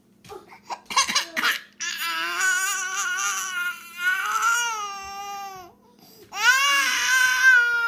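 Baby crying after her pacifier has been pulled from her mouth: two long wails, the first about four seconds long, the second about two seconds and falling in pitch at its end, after a few short sounds in the first second and a half.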